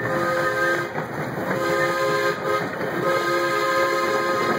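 Miniature steam locomotive's chime whistle blowing several long blasts, each a chord of several pitches, over the steady rumble of the riding cars on the track.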